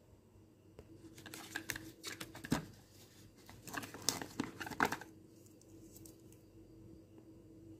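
Gloved hands opening a small cardboard carton and pulling out a vial, with crinkling, rustling and a few sharp clicks for about four seconds. The loudest snaps come near the middle and toward the end.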